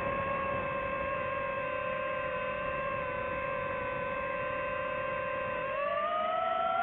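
DJI FPV drone's motors and propellers whining at a steady pitch, then rising in pitch about six seconds in as the motors speed up.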